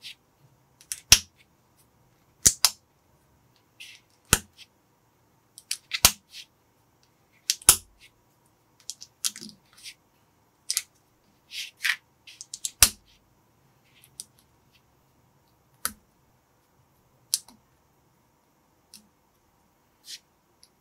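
Small plastic building bricks clicking as they are pressed together and handled. A dozen or so irregular sharp snaps come with fainter ticks between them.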